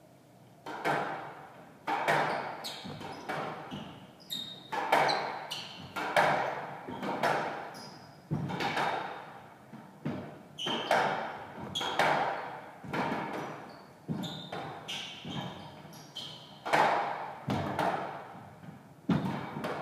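Squash rally: the ball struck by rackets and hitting the court walls about once a second, each hit echoing in the enclosed court, with short high squeaks from players' shoes on the wooden floor.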